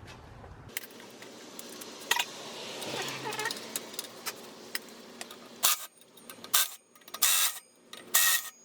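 Metal tools clinking and rattling against a motorcycle wheel hub as the sprocket bolts are worked loose. About a second before the end come several short, loud sharp bursts.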